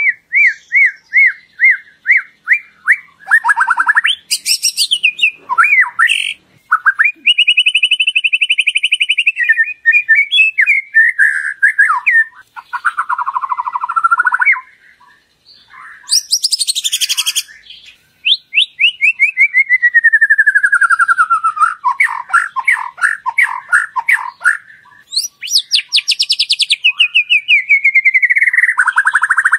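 White-rumped shama singing a long, varied song of quickly repeated notes, falling trills and whistles, with a short pause about halfway through.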